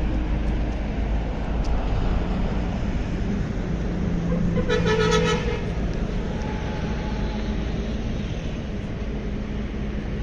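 Steady low rumble of road or engine noise, with a vehicle horn tooting once, briefly, about halfway through.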